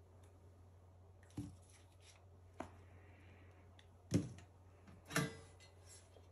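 A few light taps and knocks of a metal oven-door cover being handled, lifted off the door and set down on a bench; the two loudest knocks come about four and five seconds in, the second with a brief metallic ring. A faint low hum runs underneath.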